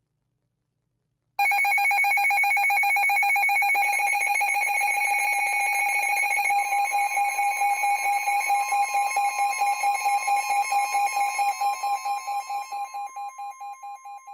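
Electronic emergency alert tone announcing a severe thunderstorm warning broadcast. It starts sharply about a second and a half in as a loud steady tone, turns into a fast pulsing of about five beats a second, and fades out near the end.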